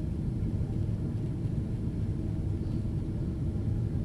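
Cabin noise inside a Boeing 767-400 airliner: a steady low rumble of engines and airflow, with a faint steady hum above it.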